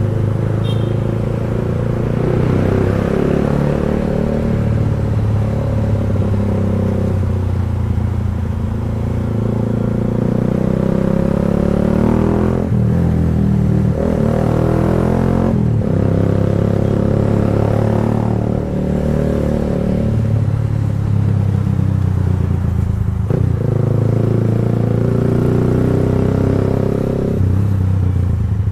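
Kawasaki Rouser 180's single-cylinder four-stroke engine running loud and steady through an aftermarket Akrapovic slip-on exhaust. The note breaks off briefly and picks up again several times.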